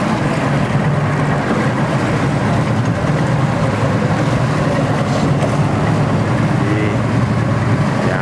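Boat engine running steadily, a low even hum with some wind and water noise over it.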